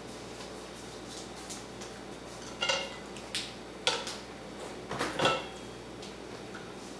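Nylon racket string being pulled and woven by hand through the strung racket frame. There are a few short scrapes and clinks, a couple of them ringing briefly, spread through the middle of the stretch.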